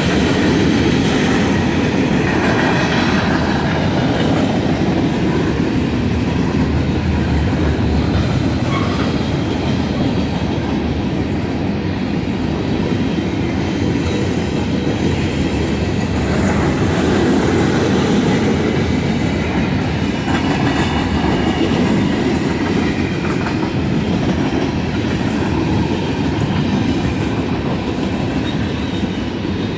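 Freight train cars rolling past at a grade crossing: a loud, steady rumble and rattle of steel wheels on the rails.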